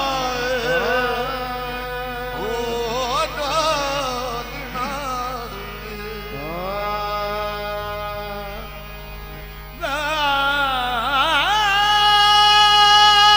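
A solo voice singing slow, ornamented phrases with a wide wavering vibrato and gliding runs between long held notes. A louder phrase begins about ten seconds in and settles into one long steady note near the end.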